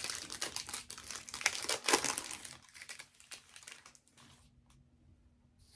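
Crinkling of a foil trading-card pack wrapper being handled for about two and a half seconds, then much fainter scattered light clicks.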